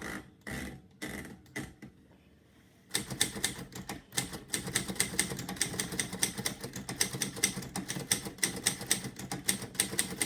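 Typewriter being typed on: after a few soft knocks, a fast, continuous run of key strikes starts about three seconds in, several clacks a second.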